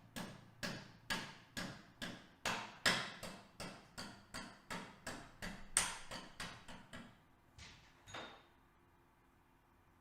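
A regular run of sharp clicks, about two a second, with two slower ones before they stop near the end.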